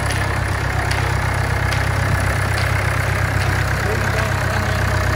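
Vintage tractor engine running slowly and steadily as the tractor pulls a parade float, a low, even engine note.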